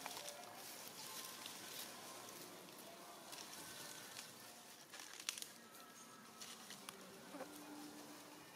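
Faint outdoor ambience of insects buzzing, with now and then a sharp crackle of dry leaf litter, the loudest about five seconds in.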